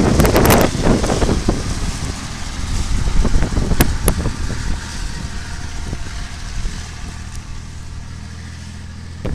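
Škoda 706 Trambus truck's diesel engine running steadily as the truck drives off, fading as it pulls away. Wind buffets the microphone in the first second.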